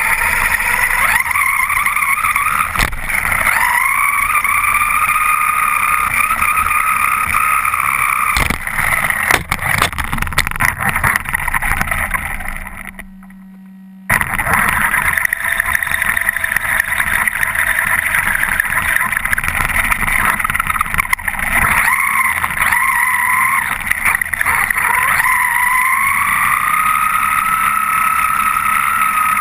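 Onboard sound of a 1/10-scale 4WD RC truck running at speed: a high motor and drivetrain whine that rises in pitch as it speeds up, over tyre and chassis rattle with a few knocks from bumps. Near the middle the sound fades away briefly, then cuts straight back in.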